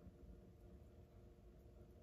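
Near silence: the faint, steady hum of an HO scale model diesel locomotive's electric motor and drive running slowly on a test track, with hardly any noise.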